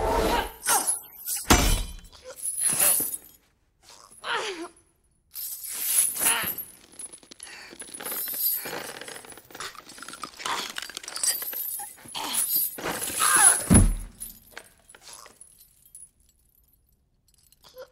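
Film fight sound effects of a chained meteor hammer: a string of separate clanks, crashes and chain rattles with short gaps between them. The heaviest thumps come about one and a half seconds in and again near fourteen seconds, and it falls almost quiet for the last two seconds.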